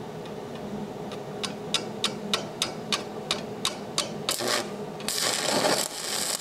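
A run of light, evenly spaced clicks, about three a second, then about five seconds in a stick-welding arc on a 1/8-inch Lincoln 7018 rod is struck against carbon steel and runs with a steady hiss.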